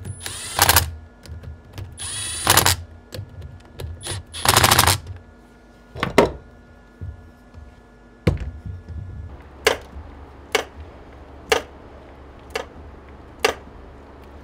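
A series of sharp clicks and knocks: three longer rattling bursts in the first five seconds, then single clicks about a second apart, with a low steady hum coming in past the middle.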